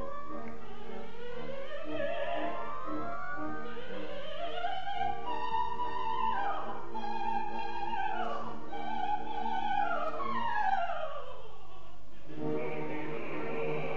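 Operatic soprano singing coloratura runs, fast scales sweeping up and down over held orchestral notes. About twelve seconds in, the runs stop and a sustained full orchestral chord takes over.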